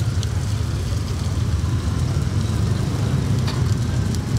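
Motorbike traffic passing on a street: a steady low engine rumble with a few faint clicks.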